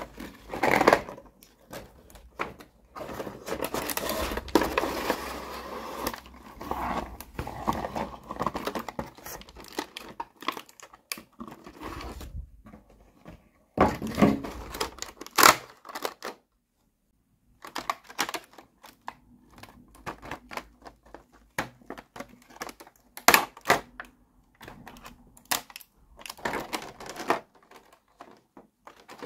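Toy packaging handled by hand: a cardboard box opened and a clear plastic blister tray of miniature dollhouse furniture lifted out and turned over. It makes irregular crinkling and rustling with sharp plastic clicks, broken by a brief silent pause a little past halfway.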